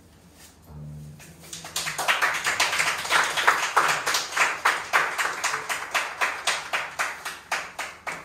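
A small audience applauding. The clapping starts about two seconds in and tapers off near the end.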